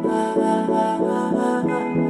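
Instrumental background music: a melody of short pitched notes, several a second, over a steady accompaniment.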